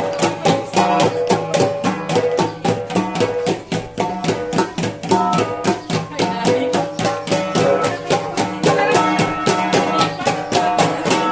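Kalinga gangsa gong ensemble played in the tuppaya style: a steady, fast run of interlocking gong strokes, about five a second, with the flat gongs ringing at several pitches.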